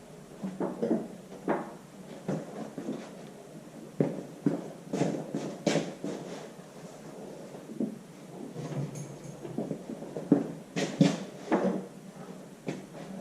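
Irregular metal clunks, knocks and scrapes as a tractor engine is wiggled and pushed against the transmission, its input shaft working into the engine.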